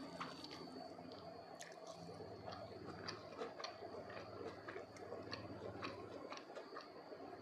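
Close-miked chewing of soft, wet food (sambal sardines and omelette), with irregular small wet clicks and smacks from the mouth.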